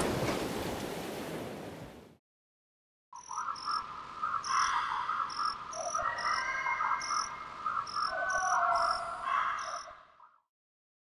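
A rushing noise fades out over the first two seconds. After a short silence, a night ambience of frogs croaking and insects chirping rises, with short high chirps about twice a second over the croaking, and fades out near the end.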